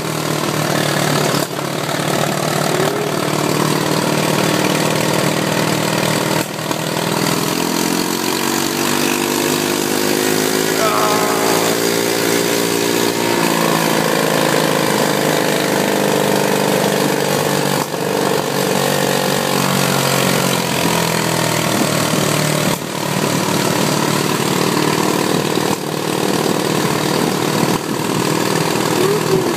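ATV engine running under way. Its pitch climbs as it speeds up about a third of the way through, then drops back as it slows, over steady rushing noise.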